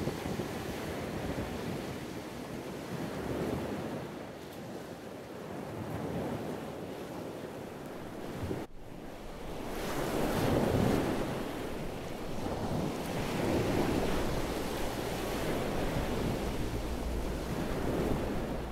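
Surf breaking on a sandy beach, with wind buffeting the microphone. The wash swells and fades every few seconds.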